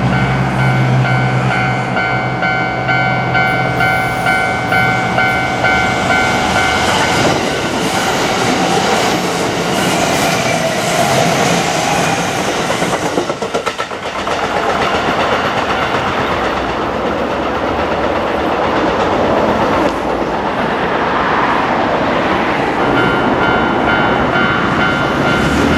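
Japanese level-crossing alarm ringing with its repeating electronic bell tones while a Kintetsu Osaka Line train runs through the crossing. The train's passage swells up about seven seconds in and drowns out the bell with wheel and rail noise, dips briefly around the middle, and dies away near the end, leaving the bell still ringing.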